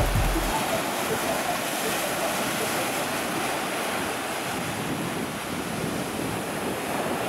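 Ocean surf washing up a sandy beach: a steady wash of breaking waves and foam.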